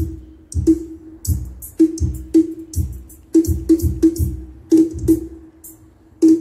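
Drum-heavy music played loud through a home-made car audio system with a subwoofer box: deep kick-drum beats about twice a second with crisp cymbal and snare hits over them.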